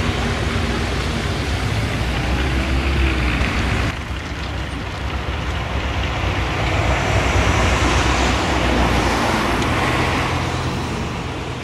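The four Wright R-3350 radial piston engines of a Lockheed L-1049 Super Constellation running at taxi power: a steady propeller drone with a deep rumble. The level drops suddenly about four seconds in, then slowly swells again.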